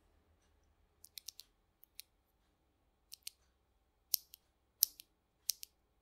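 Tecsee Purple Panda tactile switches, stock factory-lubed, being pressed and released. They make sharp plastic clicks, mostly in press-and-release pairs at an uneven pace, a few quick ones about a second in and the loudest about four to five seconds in.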